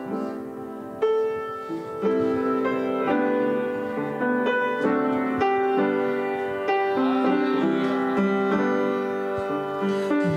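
Piano playing slow, sustained chords that change about once a second, as an introduction before a voice comes in.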